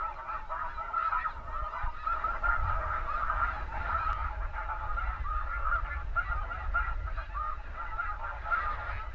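A huge flock of snow geese calling in flight overhead: a continuous din of many overlapping high honks, with a low rumble underneath.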